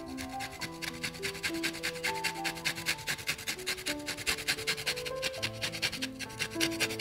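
Lemon peel scraped across a metal hand grater, a fast, even run of rasping strokes, several a second, as the zest is grated.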